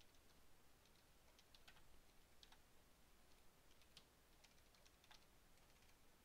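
Faint typing on a computer keyboard: irregular, separate key clicks, a few a second.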